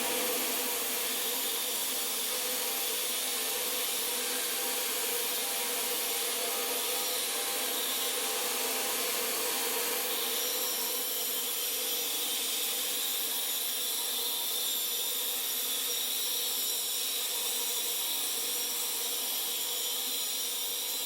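A power tool running steadily, a constant whine over a hiss.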